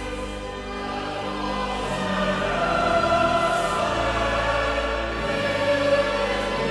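Choral background music: a choir singing long, held notes over a steady low bass.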